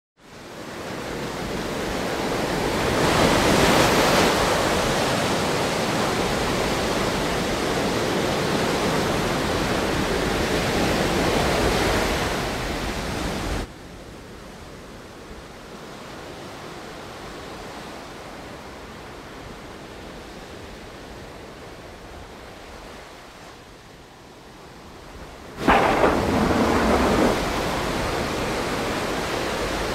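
Steady rushing noise that swells over the first few seconds. About halfway through it drops abruptly to a quieter hush, then comes back loud with a sudden crash about 26 seconds in.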